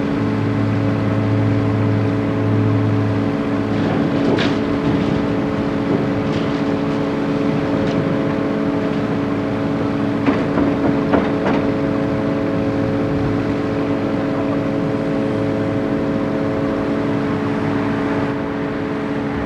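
Caterpillar 324 excavator's diesel engine running steadily under load, with metallic clanks and scraping about four seconds in and again around ten to eleven seconds in.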